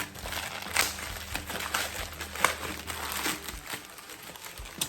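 Plastic packing crinkling as items are unwrapped and handled, with a few sharp clicks or knocks, the loudest about a second in, halfway through and at the end.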